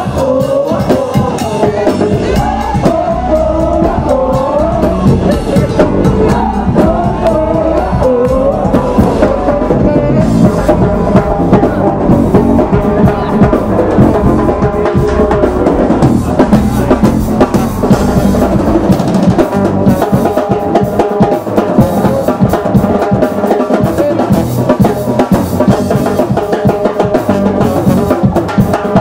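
Live band music, loud throughout: a wavering melody line over drums for the first several seconds, then dense drum and mallet-percussion playing.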